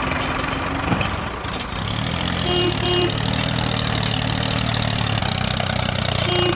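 Tractor engine running steadily with a low hum that settles in about two seconds in. Two short double beeps sound over it, once near three seconds and once near the end.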